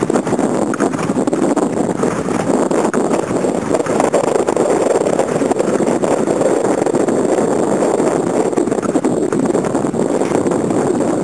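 Steady wind buffeting the microphone, over choppy, wind-rippled lake water.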